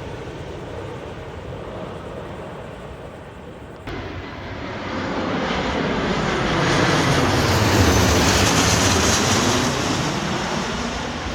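Jet aircraft engines flying past, a broad rushing roar that begins with an abrupt change about four seconds in, builds to its loudest near eight seconds, then eases off.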